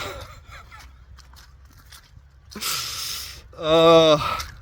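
A man takes a sharp, noisy breath, then lets out a short, loud groan, about three and a half seconds in.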